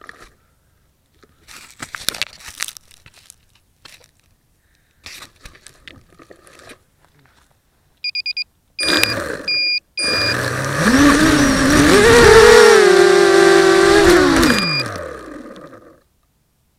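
An FPV drone on the ground gives a few short, high electronic beeps, then its electric motors spin up with a whine that rises in steps, holds for a few seconds and winds down to a stop. Scattered light clicks and rustles come before the beeps.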